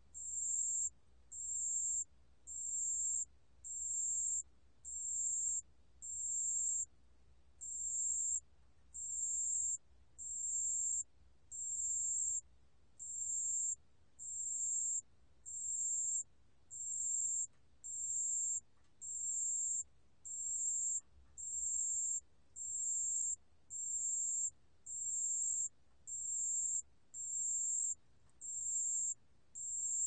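Pale bell cricket (담색방울벌레) singing at 28 °C: a high, thin chirp repeated very regularly about once a second, each chirp lasting most of a second with a short break between.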